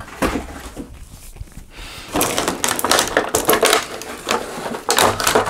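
Packaging rustling and crinkling, with light knocks, as a toy bus is taken out of its box. It is sparse for about two seconds, then dense, continuous crackling to the end.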